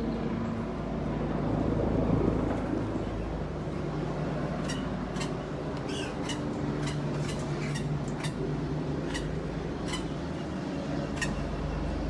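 Steady low mechanical hum, with a string of short sharp clicks from about five seconds in.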